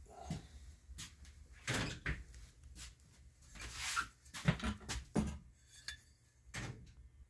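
Handling noise: rustling and a handful of light knocks and clunks, the loudest in quick succession around four to five seconds in, as parts are picked up and moved about.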